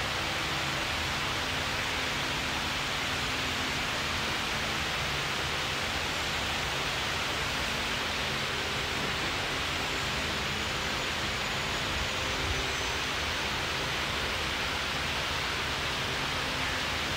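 Steady rushing air noise of a running wall-mounted fan, with a faint low hum.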